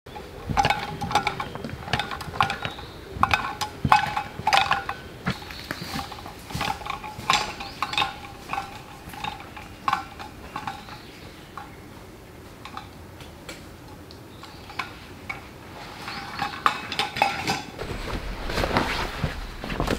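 Metal gear hanging from a hiker's backpack clinking and ringing with his steps, a few clinks a second, thinning out after about ten seconds. Near the end the steady rush of a river rises.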